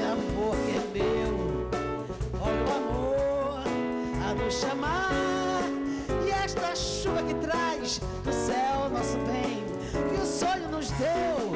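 A woman singing a Brazilian popular song into a microphone with a live band behind her, her voice sliding between long held notes.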